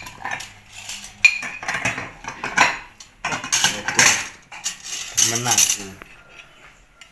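Steel spoons and ceramic plates clinking and clattering in a run of irregular knocks as plates are lifted off a stack.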